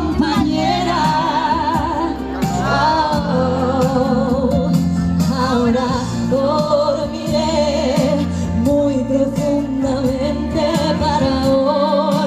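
Music: a woman's voice singing a song with vibrato over instrumental accompaniment with steady bass notes.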